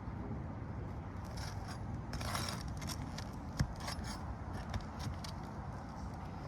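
Nails being pried out of asphalt roof shingles: scattered metallic clicks and scrapes, with a longer scrape about two seconds in and a single sharp knock a little past halfway.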